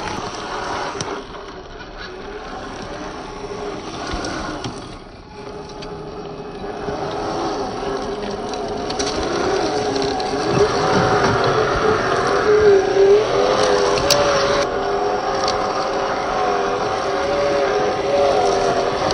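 Electric motor and gear whine of a 1/10 scale Traxxas TRX-4 RC crawler, wavering up and down in pitch with the throttle. It grows louder from about seven seconds in.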